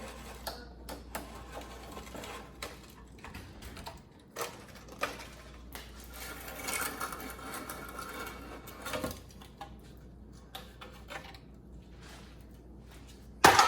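Hand tools and metal parts clicking, clinking and knocking during work on the underside of a car. There is a denser rattling stretch about halfway through and one loud clank near the end.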